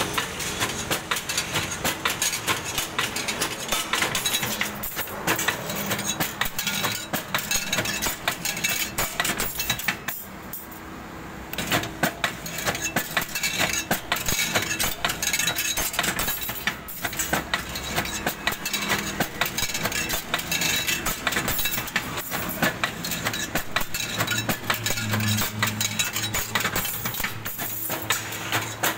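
Automatic rebar stirrup bending machine running, steel rod rattling and clinking through its straightening and feed rollers in a dense, fast clatter of metallic ticks. The clatter drops to a quieter spell for about a second and a half, some ten seconds in.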